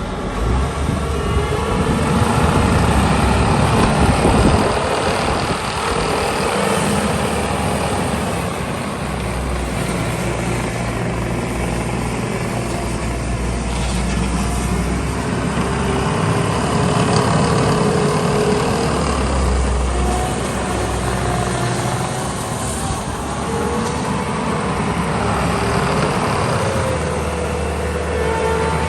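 Bobcat T650 compact track loader's diesel engine running, its engine note shifting up and down every few seconds, with whining tones that come and go over it.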